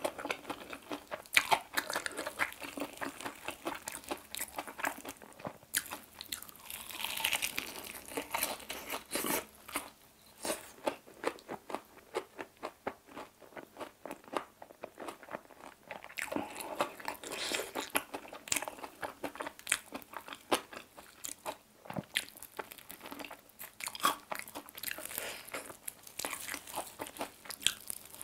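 Close-miked biting, crunching and chewing of a crispy fried chicken drumstick, a steady run of sharp crunches with wetter chewing between them.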